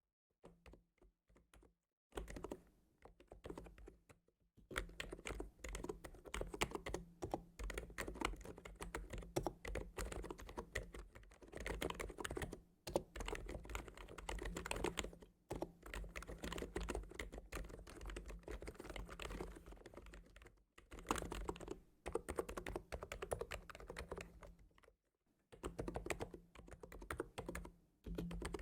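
Computer keyboard being typed on: a few light taps at first, then fast, continuous keystrokes in long runs, broken by a few brief pauses.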